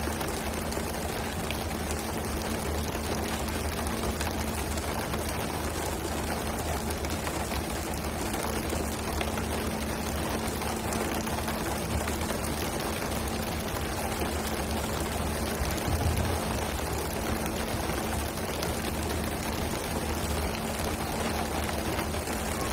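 Steady rush of splashing and spraying water at a pole-and-line fishing boat's stern as skipjack tuna are hauled aboard, over the low steady hum of the boat's engine. A brief low thump comes about two-thirds of the way through.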